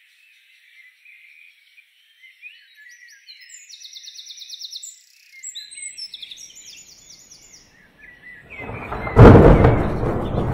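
Birds chirping, with two rapid high trills. About nine seconds in, a short rumble builds into a loud thunderclap that cracks and then rolls on.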